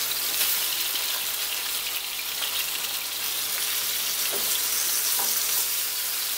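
Salmon fillets sizzling steadily as they fry in a skillet in a red wine, Worcestershire and garlic sauce while they are turned over with tongs.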